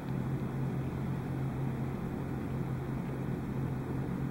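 Steady low hum with a faint hiss of background room noise.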